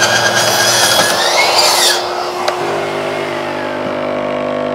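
Virutex 160 mm plunge-cut circular saw on a guide rail finishing a cut through the edge of a door, the cutting noise ending about two seconds in as the blade runs out of the work. After that the dust extractor keeps running with a steady hum.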